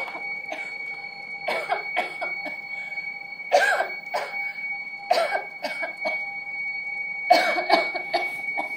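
A person coughing in several harsh bouts, the loudest about three and a half and seven seconds in, over a steady high-pitched ringing tone.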